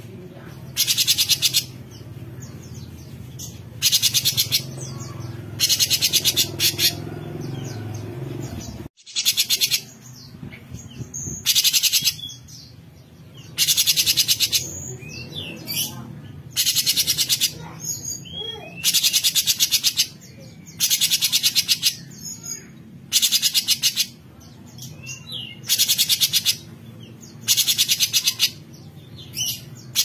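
Cucak cungkok, a leafbird, giving its harsh 'besetan' call: loud, rasping buzzy bursts about a second long, repeated every one and a half to two seconds, with softer thin chirps in between.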